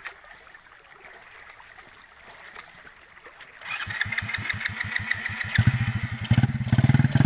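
A mud-caked trail motorcycle's engine starting about halfway through: evenly spaced slow firing pulses, then it catches and runs louder and faster near the end.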